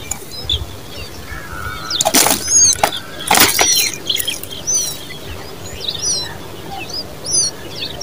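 Common babblers chirping at the nest, a run of short high chirps. Two loud wing flutters come about two and three and a half seconds in, as the adult leaves the nest.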